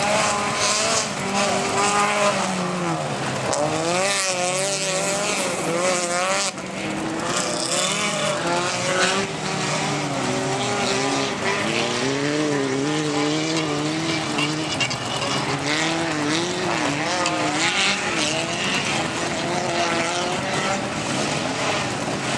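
Several dirt-track race cars' engines revving hard together, their pitches wavering up and down as the cars accelerate, lift and shift around the dirt circuit.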